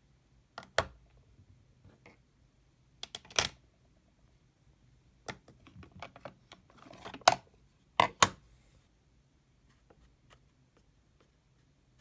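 Plastic makeup packaging handled close up: a string of sharp clicks and snaps, a brief rustle near the middle, then a few faint ticks.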